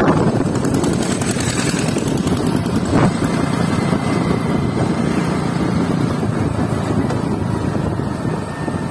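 Motorcycle engine running while riding at a steady speed, mixed with road and wind noise, with a brief thump about three seconds in.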